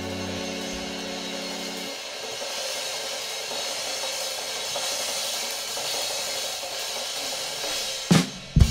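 Live band: a held keyboard chord stops about two seconds in, leaving a steady wash of cymbals. Near the end the drum kit comes in with loud hits.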